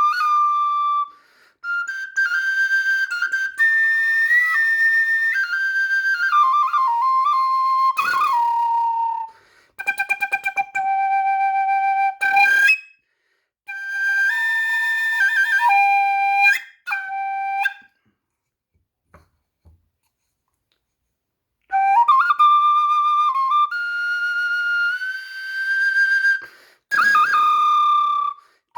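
High-pitched wooden bird flute in G playing a short improvised melody: held notes stepping up and down, with a fluttering, trilled passage about ten seconds in and a pause of a few seconds past the middle.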